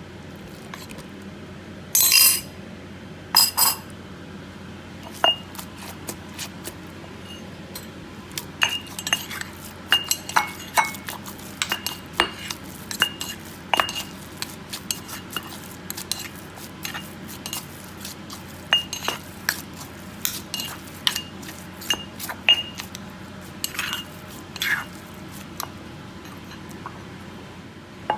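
Kitchen utensils clinking against cookware during cooking: two louder clatters near the start, then many short irregular clinks, several with a brief ringing note.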